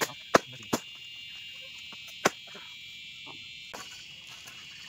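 Four sharp chopping strikes on bamboo, three within the first second and one about two seconds in, over a steady high-pitched drone of insects.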